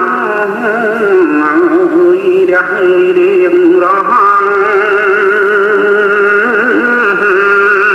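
A voice singing a Khmer song in long held notes with a strong vibrato, over steady accompanying tones. The sound is thin and muffled, with little above the middle of the range.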